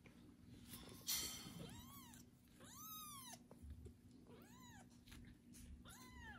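Young kitten meowing four times, each meow rising then falling in pitch, about a second or so apart. To its owners it is calling for its mother's warmth and attention, not for food. A short scuffling burst comes about a second in.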